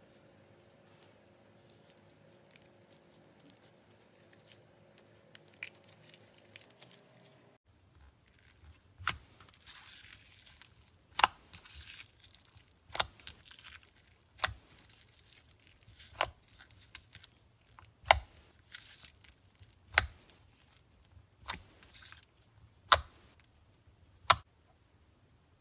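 Slime being pressed and worked by hand, giving sharp pops about every one and a half to two seconds after a few quiet seconds.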